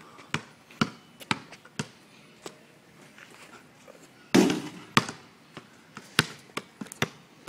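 Basketball bouncing on asphalt, sharp slaps about two a second, with a louder, heavier thump a little over four seconds in.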